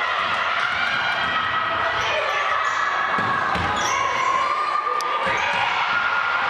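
A basketball bouncing on a hardwood gym floor during live play, with repeated thuds, and sneakers squeaking as players cut and jostle under the basket. A steady background of voices from players, bench and spectators carries on throughout.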